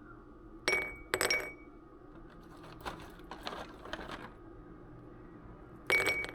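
Hard dishware clinking: two ringing clinks about a second in, some softer clatter, then a third ringing clink near the end.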